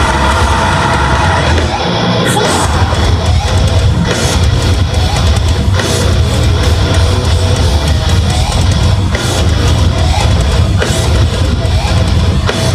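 Live metalcore band playing loud, with heavy distorted guitars and drums, heard through a camera in the crowd.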